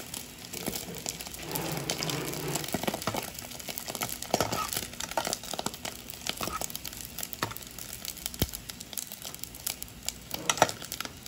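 Pork rind pieces frying in hot fat, crackling and spitting with many quick, irregular pops, a metal slotted skimmer now and then stirring them in the pan. The spitting pops show the fat hot enough for the rind to puff up into crackling.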